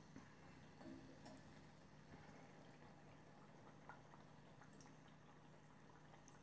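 Faint sizzling of tempura-battered morel pieces frying in oil in a small saucepan, with a few light ticks and pops over a low steady hum.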